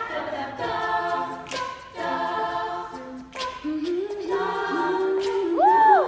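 Female a cappella group singing: a lead voice over several backing voices in harmony. Near the end one voice slides up to a high note and back down.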